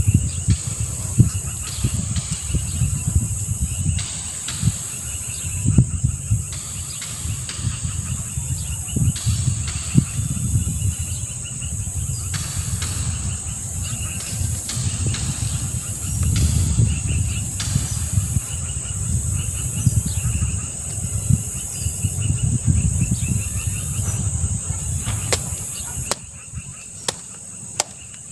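Insects chirring in a steady high drone with a faint pulse about once a second, over a low, uneven rumble and occasional rustling. A few sharp clicks come near the end.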